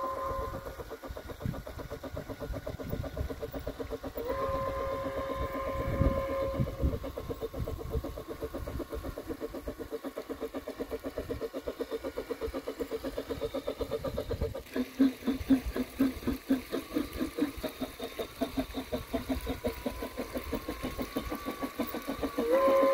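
G scale Bachmann model steam locomotive's sound unit playing a steady steam whistle over rhythmic chuffing, with the train running on the track. The whistle sounds briefly at the start, gives a longer blast of about two and a half seconds about four seconds in, and starts again right at the end; the chuffs grow distinct and regular in the second half.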